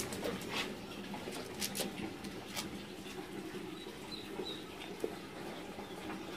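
A hand stroking and rubbing a dog's coat close to the microphone: soft rustling of fur with a few light clicks in the first three seconds.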